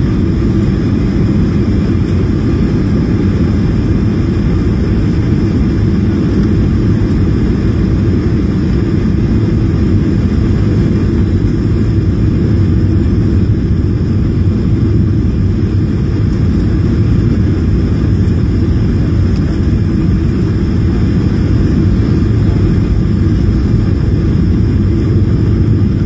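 Steady low rumble inside an airliner's cabin on landing approach: engine and airflow noise heard through the fuselage, without change in level.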